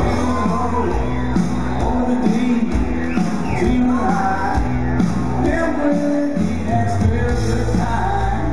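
Music with a singing voice over a bass line that changes note every second or two.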